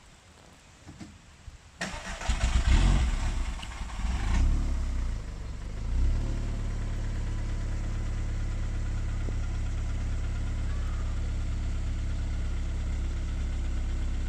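An engine starts about two seconds in, revs up briefly a couple of times, then settles into a steady idle.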